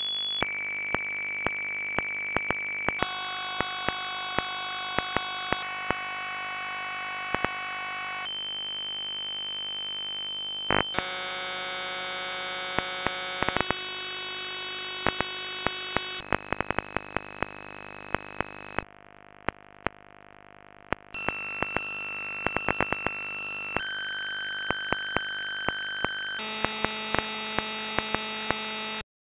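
ZX Spectrum 1-bit beeper output from a 32-byte intro: harsh, buzzy steady tones with a hiss behind them. The pitch pattern jumps to a new one about every two and a half seconds, sharp clicks are scattered throughout, and the sound cuts off abruptly just before the end.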